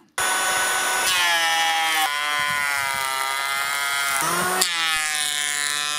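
Popoman TECCPO 18 V cordless planer, its twin-blade cutter head spinning at about 12,000 rpm, running and planing a wooden beam: a steady high whine that starts abruptly and shifts slightly in pitch a few times.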